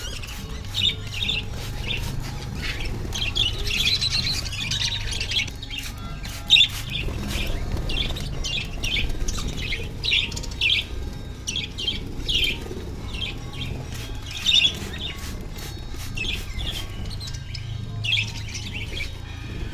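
Budgerigars chirping and chattering, a steady stream of short high chirps.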